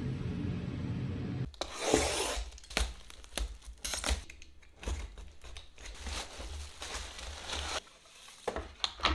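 Plastic or paper packaging being torn open and crinkled in quick, irregular rips. A low steady hum stops suddenly about a second and a half in, just before the tearing starts.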